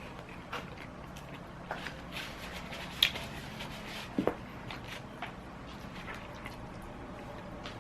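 A person eating: wet chewing and mouth sounds with a few sharp clicks scattered through, the loudest about three seconds in.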